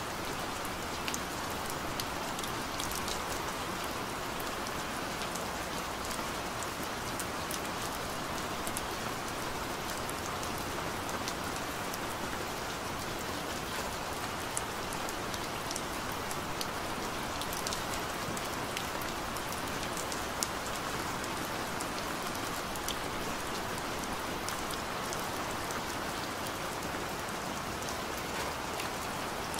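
Steady rainfall: an even hiss with many small, sharp drop ticks scattered through it.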